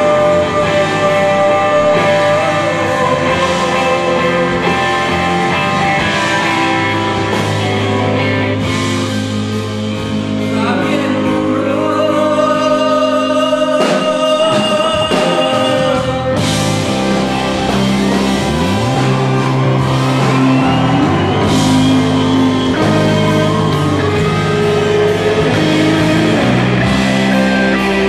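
Live rock band playing: electric guitars, bass and drums, with a man singing into a handheld microphone.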